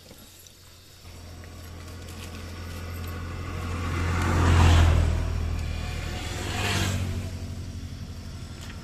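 A motor vehicle driving past: a low engine hum and tyre noise build for a few seconds, peak about halfway through, swell again briefly and then fade away.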